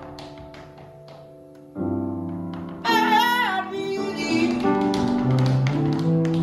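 Jazz ballad played on grand piano with a saxophone, with tap-dance steps clicking over the top. The piano plays soft held chords, then fuller ones a little under two seconds in. About three seconds in, the saxophone enters with a high phrase that bends downward, and the music grows louder.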